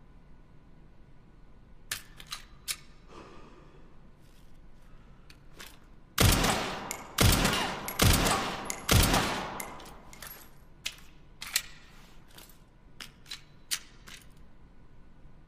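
Four shots from a SIG Sauer P320 pistol, about a second apart, each with a long trailing echo, with scattered sharp clicks before and after the shots.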